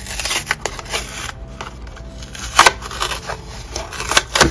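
Clear plastic blister pack of a carded die-cast toy car crinkling and clicking under the fingers in a string of sharp crackles, the loudest about two and a half seconds in and again near the end.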